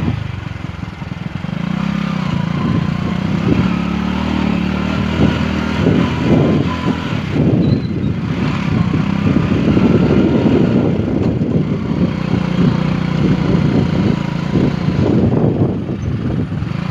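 Motorcycle engine running at low speed while riding along a rough dirt track, with irregular bumping and rattling over the ruts through the middle and later part.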